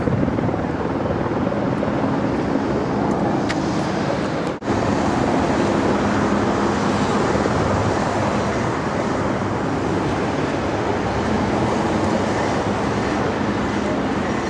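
Steady outdoor urban din with a vehicle engine hum, broken by a brief dropout about four and a half seconds in.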